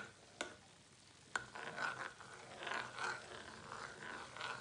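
Metal spoon stirring melted butter in a coated frying pan, scraping the pan bottom about twice a second, with the butter just starting to sizzle. Two light clicks of the spoon against the pan in the first second and a half.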